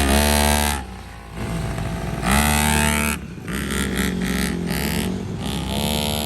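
X7 pocket bike's small two-stroke engine revving in repeated throttle bursts, easing off briefly about a second in and again a little after three seconds, then holding high revs, as the rider tries to pull a wheelie.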